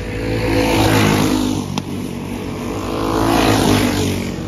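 Small single-cylinder four-stroke clone engines of dirt-track racing karts running flat out and passing close by, one about a second in and another around three and a half seconds in, each swelling and falling away in pitch as it goes past. A single sharp click about two seconds in.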